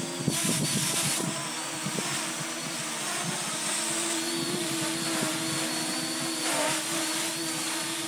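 Parrot Anafi quadcopter's brushless motors and propellers humming steadily while it hovers close by, a pitched whine with a slight waver. Wind buffets the microphone underneath.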